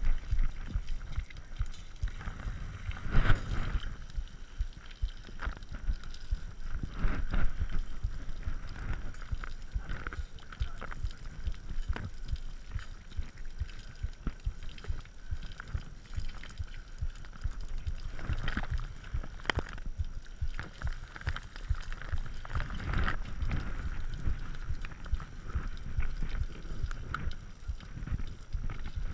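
Lapierre mountain bike ridden over rough, wet ground, heard from a camera mounted on its frame: a constant low rumble from the tyres and frame, broken by irregular knocks and rattles as the bike hits bumps, the loudest a few seconds in and around the middle.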